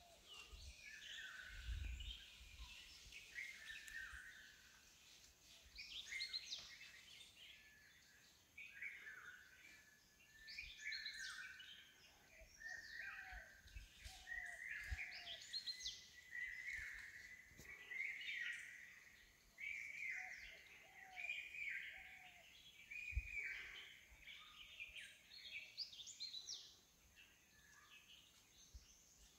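Several wild birds calling and singing, with short chirps and whistled phrases overlapping one another. There are a couple of low thumps, one about two seconds in and one near the end.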